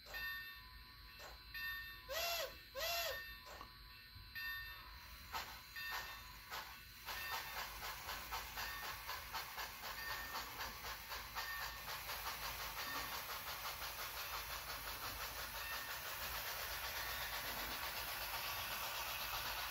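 HO scale model steam locomotive sound: two short whistle blasts about two seconds in, then from about seven seconds a steady, fast chuffing with hiss as the passenger train pulls away.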